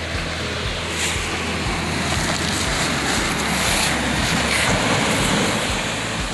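Surf washing onto a pebble beach, the rush of the wave swelling about a second in and easing off near the end, over a low wind rumble on the microphone.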